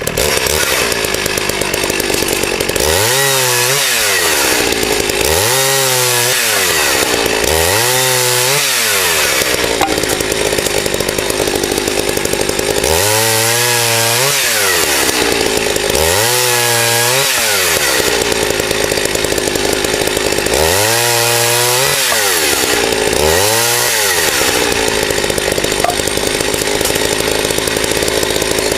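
Two-stroke chainsaw running hard and cutting wood, its engine pitch swelling and dropping again every couple of seconds in several runs.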